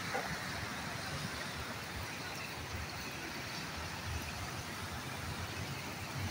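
Steady rainy street ambience: an even hiss of rain with the low sound of traffic passing on the wet road.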